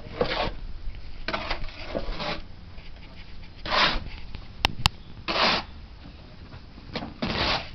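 Bricklaying work: a trowel scraping mortar on brick in short strokes, five or so spread over several seconds, with two sharp clicks a moment apart about halfway through.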